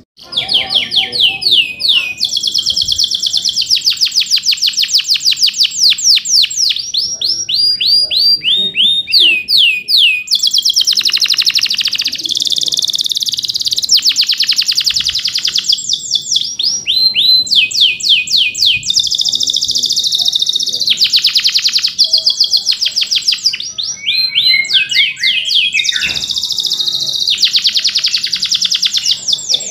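Male domestic canary singing energetically. Runs of quick falling notes alternate with dense, fast rolling trills, with only brief pauses.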